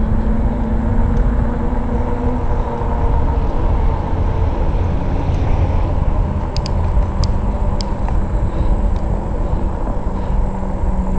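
Steady riding noise of a RadRover fat-tyre e-bike on an asphalt path: wind rushing over the action camera's microphone mixed with the rumble of the fat tyres on the pavement.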